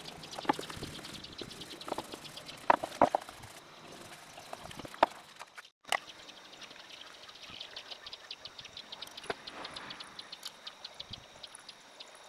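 Outdoor ambience with a rapid, even high-pitched ticking or chirping, several ticks a second, and several sharp knocks and taps in the first half. The sound drops out briefly about halfway through.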